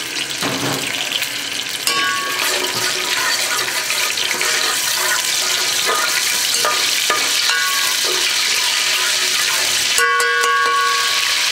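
Whole spices (cumin seeds, cinnamon, cardamom) sizzling and frying in hot oil in an aluminium pot as they are stirred. A steel spoon clinks and rings briefly against the pot near the end.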